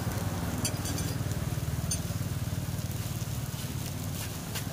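A steady low engine-like rumble with a fine rapid pulse, over which a few light clinks of spoons and chopsticks on plates come through.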